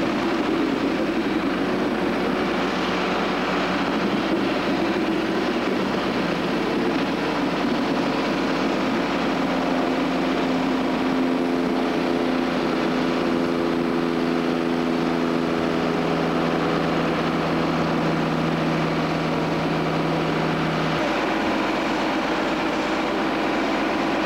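Coaling of a standing BR Standard 4 tank steam locomotive from a crane lorry: a steady wash of steam and engine noise. A droning engine hum, held at several pitches, comes in about six seconds in and cuts off about twenty-one seconds in.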